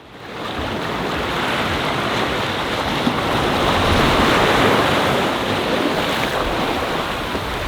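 Waves washing on the shore with wind buffeting the microphone, fading in at the start and swelling a little midway.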